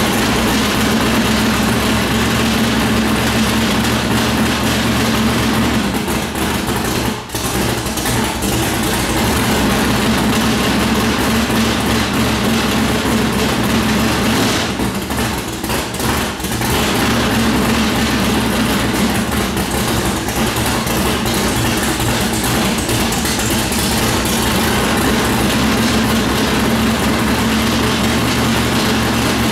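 Freshly rebuilt 440 big-block V8 of a 1970 Plymouth Cuda drag car running at a loud, steady idle, with a brief dip about seven seconds in and an unsteady stretch around the middle.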